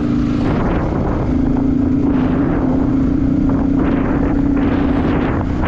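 Yamaha R15 motorcycle's single-cylinder four-stroke engine running while riding, a steady hum that drops out briefly about half a second in and comes back about a second later. Wind noise on the helmet microphone runs under it.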